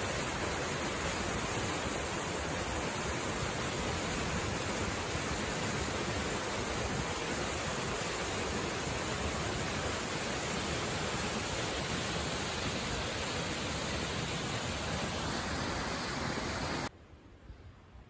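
Waterfall plunging down a rock face into a deep pool, a steady, dense rush of falling water. It cuts off suddenly near the end, leaving a much quieter background.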